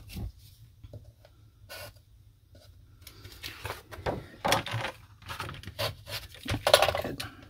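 A large sheet of patterned cardstock being handled on a silicone craft mat. A single knock comes at the start, then a quiet stretch. From about three seconds in there is a run of rustles, flaps and taps as the sheet is lifted and turned over, loudest near the end.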